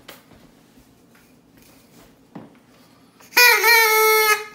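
A handheld plastic noisemaker whistle blown once near the end, giving one loud, buzzy, reedy note about a second long. Before it there are only faint handling knocks.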